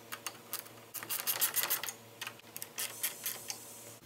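Wrench tightening a bolt on a steel pole-mount sign bracket, giving a run of quick metallic clicks that come thickest about a second in and thin out near the end.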